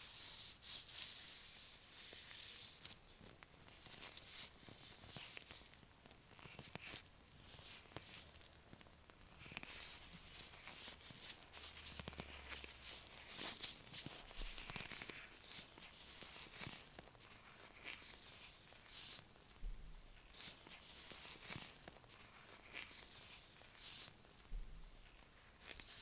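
Latex-gloved fingers tapping and rubbing an earphone microphone up close, giving irregular soft crackles, taps and sticky rustles.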